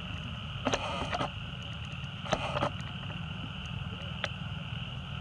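Steady high-pitched insect drone over a low rumble, with a few short, sharp clicks: a cluster about a second in, two more around two and a half seconds and one past four seconds.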